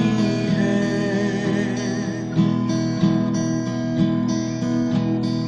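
Acoustic guitar strumming a steady accompaniment to a Hindi film song, with no singing over it.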